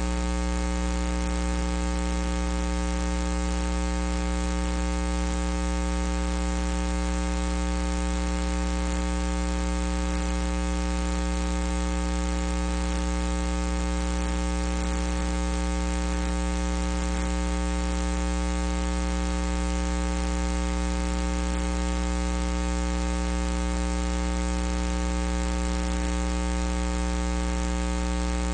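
Steady electrical mains hum on the audio feed: an unchanging low buzz with many evenly spaced overtones, under a constant hiss. No other sound stands out from it.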